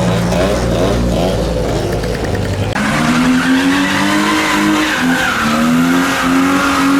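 A car's engine revving hard with tyres squealing as it skids. A little under three seconds in, the sound changes abruptly to an engine held at high revs, its pitch wavering.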